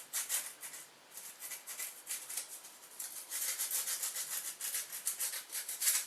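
Emery paper rubbed back and forth over a part in quick scratchy strokes, roughing up the surface so the glue will grip.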